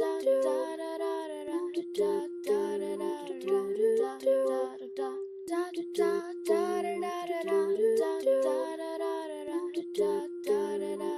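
Layered wordless female vocal harmonies sung a cappella, with no instruments: several voices hold and shift long notes together, breaking off briefly twice.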